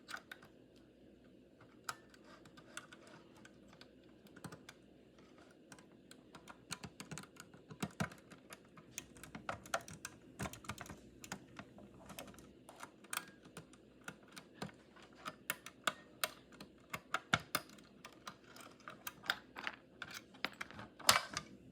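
Lock pick and tension wrench working the key lock of a fire alarm pull station: many irregular light clicks as the pins are worked, coming faster and louder from about six seconds in.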